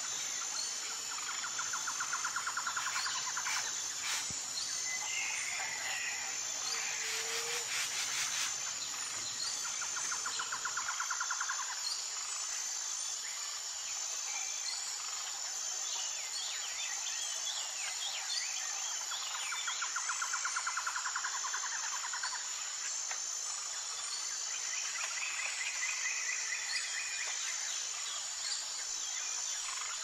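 Tropical forest ambience: a steady high insect drone with scattered bird chirps and calls, and a rapid pulsing trill that recurs every several seconds.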